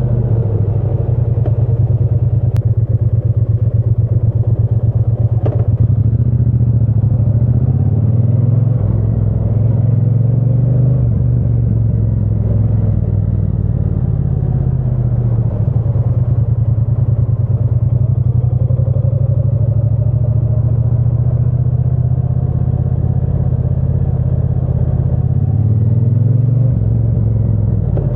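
Triumph Bonneville T120's 1200 cc parallel-twin engine and exhaust running under way, the note rising and falling several times as the rider opens and closes the throttle and changes gear. A couple of sharp clicks come a few seconds in.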